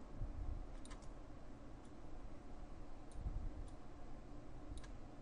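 A few faint computer mouse clicks, spaced about a second apart, over a faint steady background hiss.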